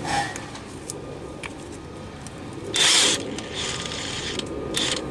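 DeWalt cordless impact wrench triggered briefly about three seconds in, a short loud whir, followed by two shorter bursts, among scattered clicks of the tool being handled.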